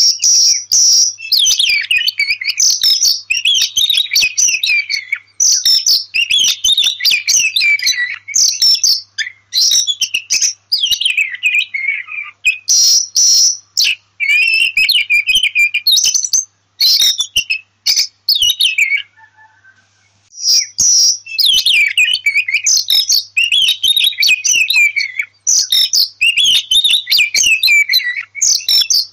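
Oriental magpie-robin (kacer) singing: a run of loud, varied whistled and chattering phrases separated by short breaks, with a longer pause about two-thirds of the way through. It is a lure recording (pancingan), played to coax a young magpie-robin into song.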